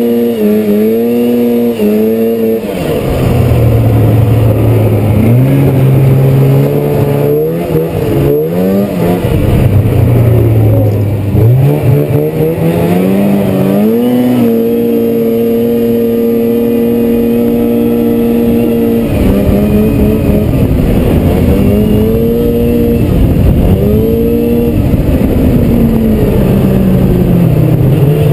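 Polaris 500 Indy Trail Touring snowmobile's two-stroke twin engine under way, its revs dropping and climbing again and again as the throttle is worked. The engine pitch drops a few seconds in, rises around the middle and holds steady for about five seconds, then falls and climbs again near the end.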